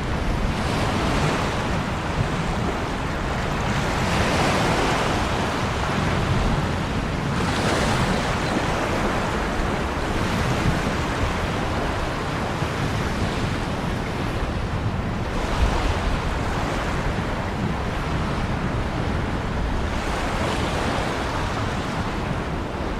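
Ocean surf: a continuous wash of breaking waves, with a wave surging in louder every few seconds.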